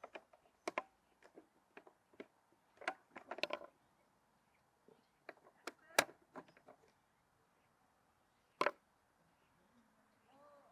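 Scattered small clicks and taps of plastic and metal parts being handled: bulb holders and bulbs being fitted into a Citroën DS instrument cluster. The clicks come at irregular intervals, the sharpest about six seconds in and again near nine seconds.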